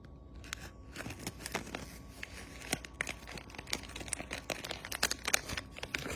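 Cookie packaging crinkling and rustling as it is handled, a busy run of irregular crackles.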